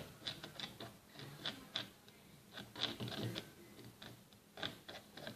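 Cold hand-soap-and-salt slime being squeezed and worked by hand, making irregular sticky clicks and pops.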